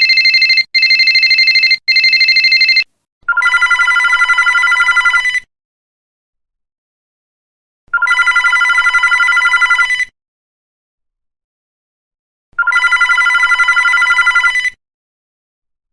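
Telephone ring sound effects. For the first three seconds a high, fast-warbling ring sounds in roughly one-second bursts, then it stops and a lower trilling telephone ring starts, each ring about two seconds long, coming three times with about two and a half seconds of silence between.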